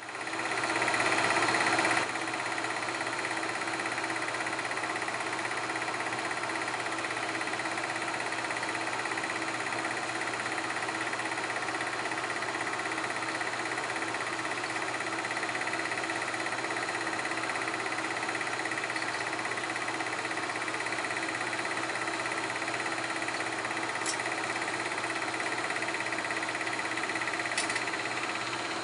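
Film projector running with a steady mechanical whir and clatter, louder for the first two seconds, with two brief clicks near the end.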